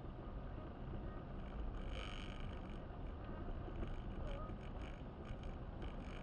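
Car driving on a snowy, slushy road, heard from inside the cabin: a steady low rumble of tyres and engine, with a brief higher hiss about two seconds in and a few short ones later.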